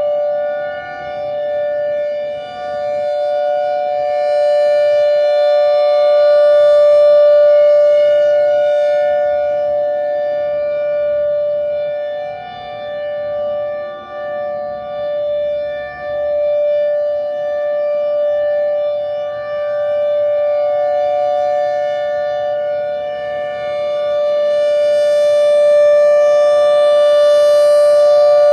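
Thunderbolt 1000A outdoor warning siren sounding a steady two-tone test signal, its pitch holding level while the loudness slowly swells and fades.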